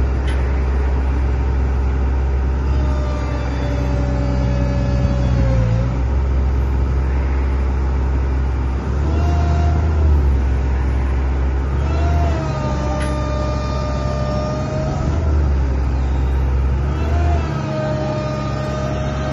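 Komatsu PW130ES wheeled excavator's diesel engine running, with a hydraulic whine that rises and settles several times as the machine is worked.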